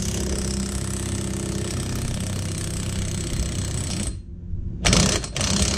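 Impact wrench hammering steadily as it drives a bearing press tool, drawing the wheel hub into a new press-in front wheel bearing; it stops about four seconds in, then gives two short bursts.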